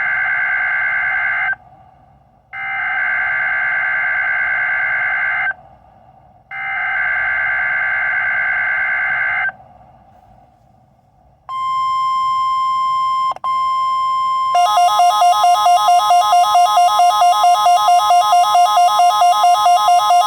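NOAA Weather Radio required weekly test alert: three buzzy SAME data-header bursts, each about three seconds long, then the steady 1050 Hz warning alarm tone. About three seconds into that tone, a pulsing, wavering alarm at about five pulses a second joins it and keeps going.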